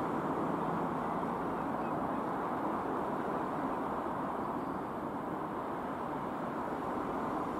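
Steady jet roar from a Dassault Falcon 20 business jet flying past overhead, an even rushing noise without distinct tones that eases slightly about two-thirds of the way through.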